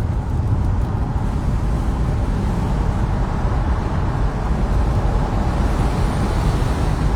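Steady low rumble of road and engine noise from a car in motion.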